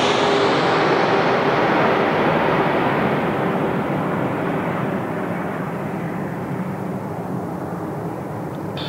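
Jet airliner engine noise fading as the aircraft moves away, its engine whine sliding slowly down in pitch and the hiss thinning out.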